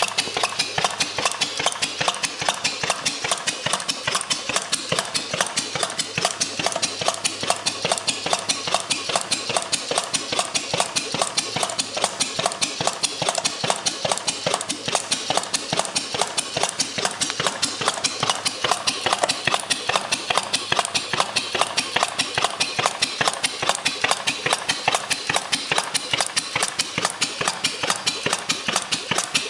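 1883 Crown pumping engine, a non-compression, flame-ignition spool-valve gas engine, running steadily on synthetic illuminating gas. It makes a fast, even clatter of sharp mechanical clicks, several a second, with no change in pace.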